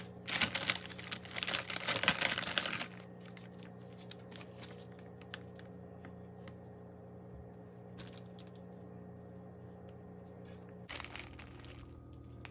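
Crinkling and rustling of handled packaging for about two and a half seconds, then a steady background hum with a few small clicks. A short burst of crinkling comes again near the end.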